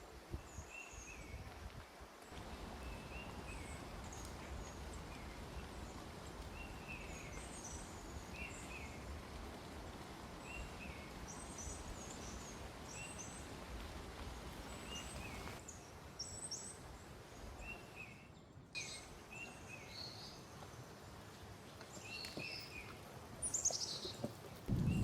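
Small birds chirping in short, repeated calls over a steady low outdoor background noise.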